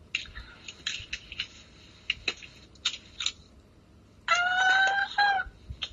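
Light crinkling and clicking of a small plastic packet being handled and opened by fingers. About four seconds in, a high, drawn-out cry about a second long that holds its pitch and breaks briefly near its end.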